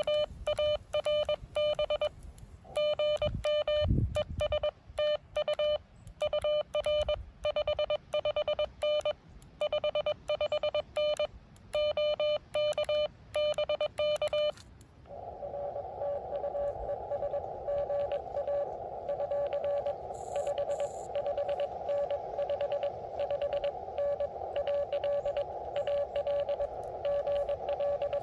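Morse code tones from an amateur radio transceiver in a CW exchange. For about fifteen seconds a loud, clean keyed tone with silent gaps is sent, then the receiver opens with a band of filtered hiss and a fainter station keying Morse inside it. There is a low thump about four seconds in.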